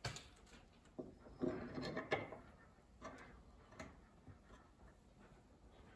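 Faint metal clicks and short scrapes as a bolt is picked up and set into a freshly drilled bolt hole in a brake rotor, the busiest handling about one and a half to two seconds in.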